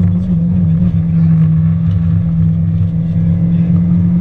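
Opel Astra GSi rally car's four-cylinder engine running hard at high revs, heard from inside the cabin, with tyre and road noise underneath. The engine note dips briefly just under a second in, then holds steady.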